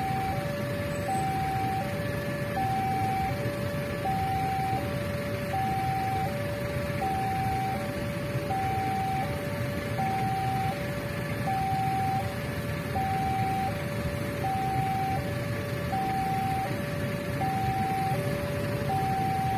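Railway level-crossing warning alarm sounding, a two-tone electronic chime alternating a higher and a lower note, about one high-low pair every one and a half seconds. Under it runs the low rumble of waiting road traffic.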